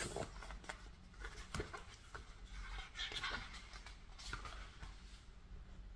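Faint paper rustles and soft taps as a large album photobook is handled and turned over in the hands.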